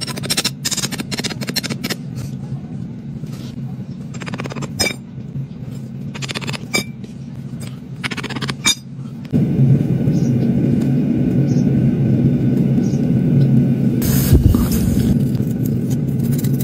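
Metal tools scraping and tapping in moulding sand during sand casting, over a steady machine hum that gets louder about nine seconds in.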